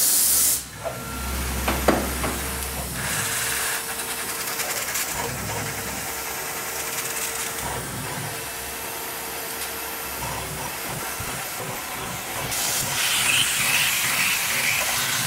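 Tormach PCNC 1100 CNC mill drilling a 9/16-inch hole in a steel bracket with a twist drill, under a steady hiss of spray from the nozzles aimed at the drill. A faint steady tone runs through the middle, and the hiss grows louder near the end.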